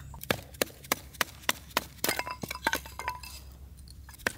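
A Mora knife being batoned through thin firewood to split kindling: a baton strikes the back of the blade in quick, even knocks, about three a second.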